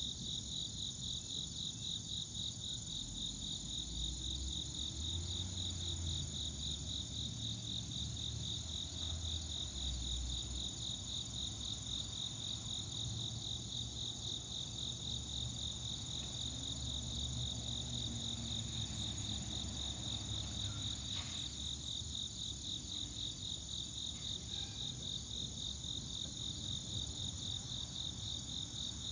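Steady chorus of insects singing a high pulsing trill. About four to ten seconds in, a low rumble of distant thunder swells underneath it.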